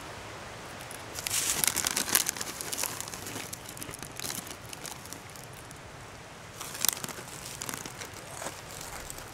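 Plastic-foil snack bag of potato sticks crinkling as a hand digs in and pulls out a handful. The rustle is loudest for about a second starting a second in, with another short burst around seven seconds.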